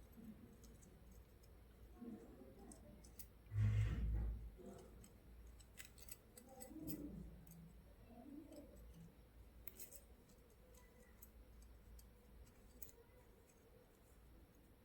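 Faint clicks and small handling noises of tools and parts as the wire is loosened from a soldering iron's burnt heating coil, with one soft thump about four seconds in.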